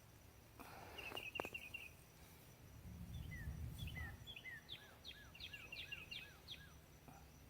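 A songbird singing faintly: a quick run of chirps, then a string of repeated, evenly spaced phrases. A brief low rumble about three seconds in, and a couple of clicks near the start.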